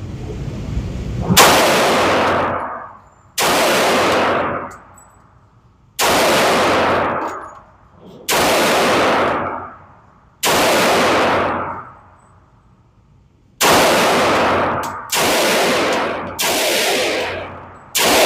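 Gunshots: nine shots fired one at a time at an unhurried pace, roughly two seconds apart. Each shot is loud and trails off over about a second.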